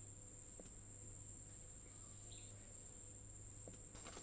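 Near silence: quiet room tone with a faint steady high-pitched whine and a low hum.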